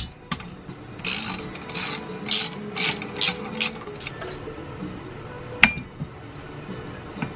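Ratchet wrench clicking through a run of about seven quick strokes, then a single sharp click a couple of seconds later, as bolts are loosened to take the intake manifold off an Onan CCKA engine.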